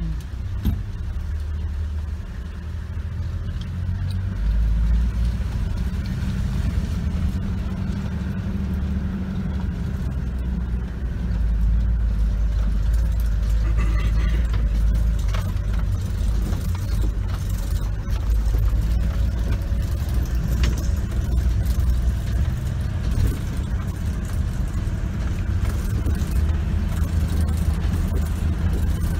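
Safari four-wheel-drive vehicle driving along a dirt track, heard from inside the cabin: a steady low engine and road rumble with occasional rattles and knocks from the body.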